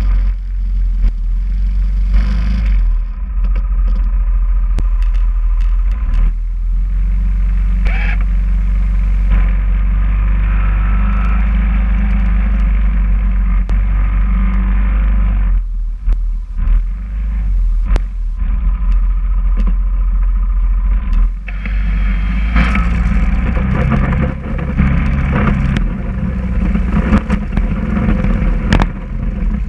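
Yamaha Kodiak ATV engine running steadily while its front-mounted snow plow blade pushes and scrapes through snow, with scattered knocks and clatter from the blade.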